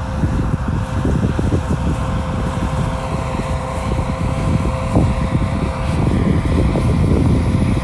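SHERP ATV's diesel engine running steadily with a constant hum as the vehicle drives slowly across snow, under heavy wind buffeting on the microphone.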